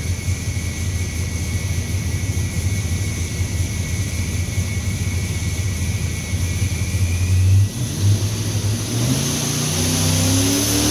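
Supercharged 540 cubic inch big-block V8 running on an engine dyno, idling steadily with a thin high whine over it. Near the end it dips briefly, then its pitch climbs as the engine revs up at the start of a dyno pull.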